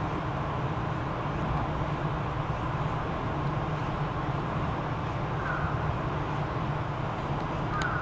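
Steady low background din of distant road traffic, with two faint short chirps, one about halfway through and one near the end.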